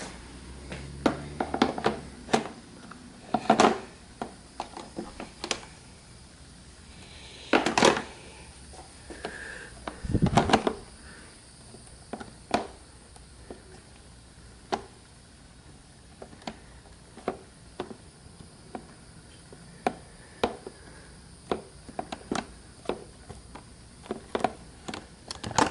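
Irregular hard plastic clicks, taps and knocks as the Yamaha R6's air filter and plastic airbox housing are handled and pressed into place over the intake boots, with a few louder knocks, one of them a dull thump about ten seconds in.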